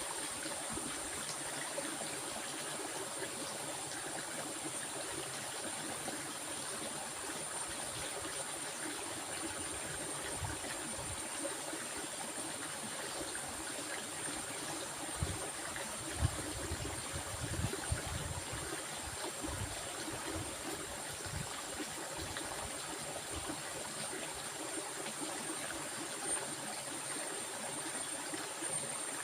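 A stream flowing steadily, with an even rush of water and a thin, steady high-pitched tone above it. A few low bumps come between about halfway and two-thirds of the way through.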